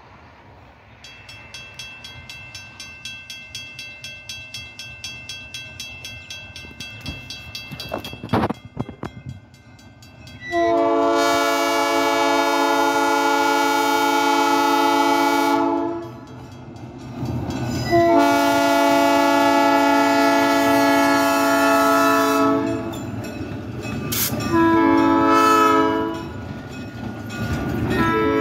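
Diesel locomotive's multi-chime air horn sounding long, long, short, long, the standard grade-crossing signal, as the train approaches. Before the horn, a bell rings steadily for about ten seconds, growing louder as the train comes nearer.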